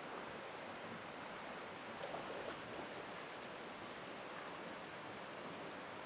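Steady rushing outdoor noise, with a few faint brief sounds about two seconds in.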